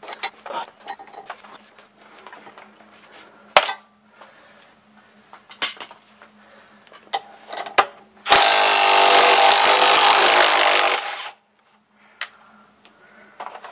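A power tool spinning a bearing puller's forcing screw in one loud run of about three seconds, starting about eight seconds in and stopping abruptly, pulling a tapered carrier bearing off a Ford 8.8 differential carrier. Before it come scattered clicks and knocks of the puller being set, with one sharp knock about three and a half seconds in.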